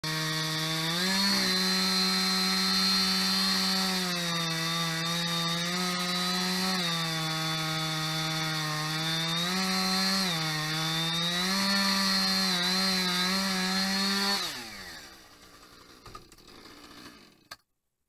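Husqvarna two-stroke chainsaw running at full throttle while cutting into a tree trunk, its pitch dipping and rising as the chain bites into the wood. About fourteen seconds in, the throttle is released and the engine winds down in pitch and fades, followed by a couple of faint knocks before the sound cuts off.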